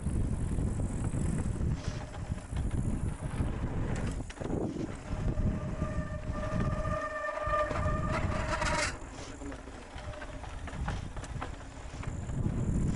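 Mountain bike rolling fast down a loose gravel trail: wind buffeting on the helmet camera and tyres crunching over stones, with a few sharp knocks. For about three seconds in the middle a disc brake squeals on a steady high note while the rider brakes.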